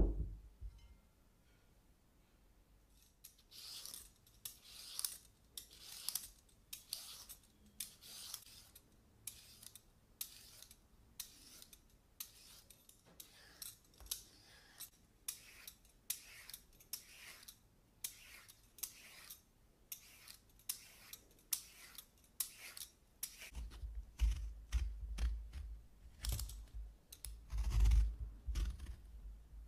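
A hand-held vegetable peeler scraping thin ribbons from a zucchini in a steady series of short rasping strokes, about one a second. In the last few seconds, lemon rind is peeled on a wooden board, adding dull low knocks among the strokes.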